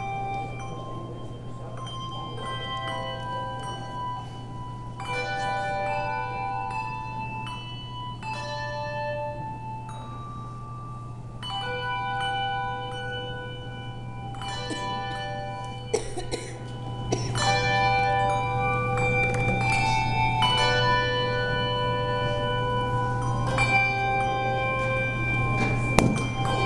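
A hand-bell choir playing a tune: chords of handbells struck together and left to ring, changing every second or two, over a steady low hum.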